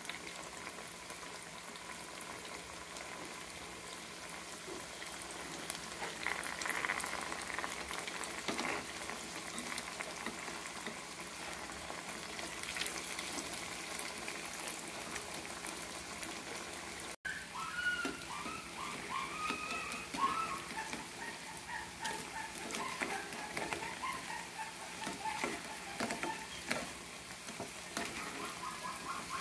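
Cubes of tofu cooking in a pot of hard-bubbling liquid, a steady crackling bubble with small pops. In the second half a run of short, squeaky chirps rises over it.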